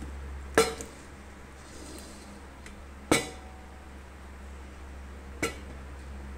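Stainless steel gooseneck drip kettle clinking as it is handled and set on a wooden table: three sharp metallic knocks a couple of seconds apart, the middle one loudest with a short ring, over a steady low hum.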